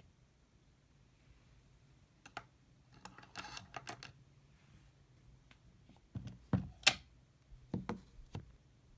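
Plastic makeup packaging being handled: irregular small clicks and taps, a brief rustling flurry about three seconds in, and a few heavier knocks with a sharp snap about seven seconds in.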